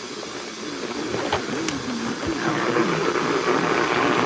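Radio broadcast audio from a receiver: a voice with long, sliding pitch that grows louder over the first couple of seconds, with two sharp clicks about a second and a half in.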